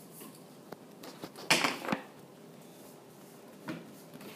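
Handling noise from a child moving at a wooden table: a few light knocks and taps, and a short loud rustle about a second and a half in.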